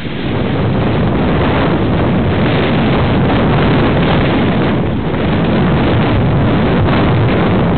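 Wind buffeting the camera microphone, a loud and steady rushing noise that dips briefly about five seconds in.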